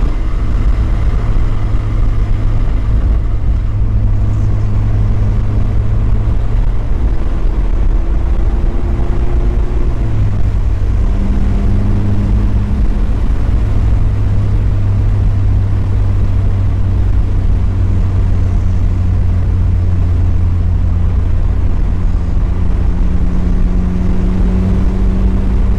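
Mazda Miata's four-cylinder engine running steadily under way, with road noise. The engine note climbs slowly a few seconds in, drops about ten seconds in, then climbs again near the end.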